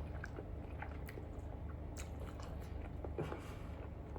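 A person chewing a mouthful of food, with soft mouth sounds and faint small clicks, over a steady low hum.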